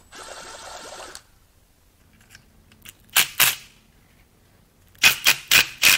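A brief mechanical whir for about a second, then sharp metal clicks from tools against the timing chain and sprocket of a Mazda 2.3L MZR engine: two about three seconds in and a quick run of five or six near the end.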